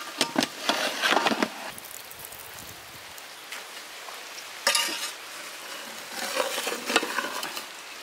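A long steel ladle clanks and scrapes against a large metal biryani pot in several bursts, with a metallic ring: the dum is being opened and the cooked rice and whole chicken are turned over with the ladle.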